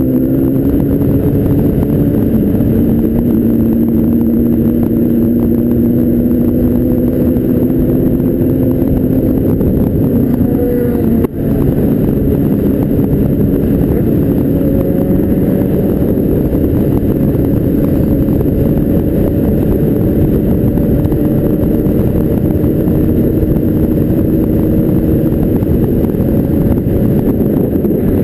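Motorcycle engine, heard from the bike itself, pulling up in pitch at the start and then holding a steady cruise over a constant rush of wind and road noise. The sound drops out briefly about eleven seconds in.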